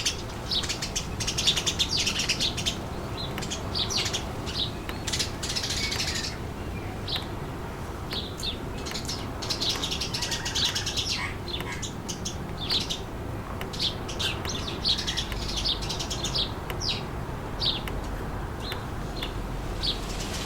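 Small birds chirping and chattering, several calling over one another in dense bursts near the start, about five seconds in and about ten seconds in, with many short single calls between. Wind noise runs low underneath.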